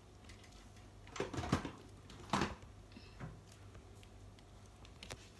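Handling of a toy ball's wrapper: two short bursts of rustling about a second apart, a smaller one after, and a couple of light clicks near the end.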